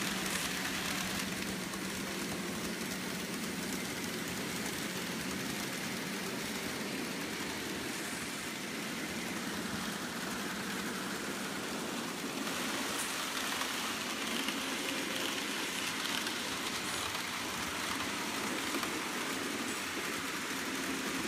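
Several N-scale model trains running at once: a steady whir and rattle of small locomotive motors and wheels on the track, with a faint low hum.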